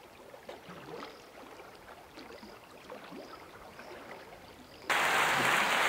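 Faint, sparse ticks and soft high blips, then about five seconds in a loud steady hiss cuts in abruptly.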